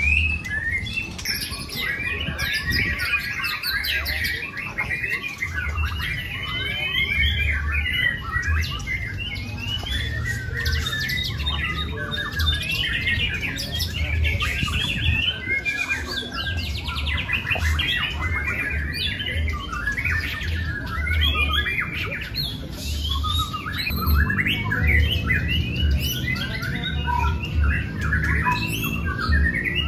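A dense chorus of many caged white-rumped shamas singing at once, with overlapping rapid warbles, chirps and whistled phrases that never pause. A low, intermittent rumble runs underneath.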